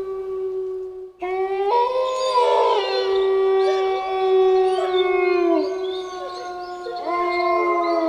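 Wolves howling in chorus. One long steady howl breaks off about a second in, then several howls rise in together at different pitches, some sliding down past the middle, and a fresh howl rises in near the end.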